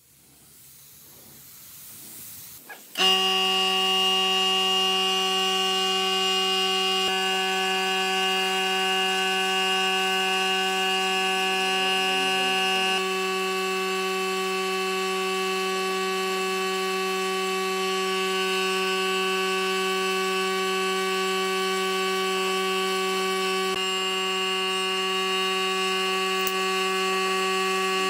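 Compressed-air spray gun spraying finish: a steady hiss with a constant buzzing hum that comes in abruptly about three seconds in and holds at one pitch.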